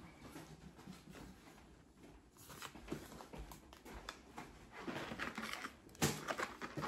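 Quiet handling of grocery packaging: faint rustling and a few light knocks, with a sharper knock about six seconds in.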